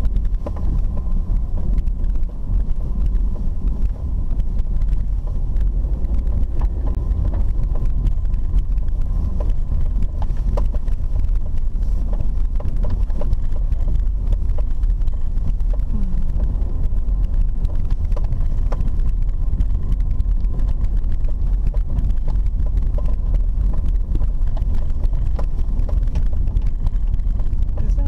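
A car driving on a dirt road, heard from inside the cabin: a steady low rumble of engine and tyres, with scattered small knocks and rattles.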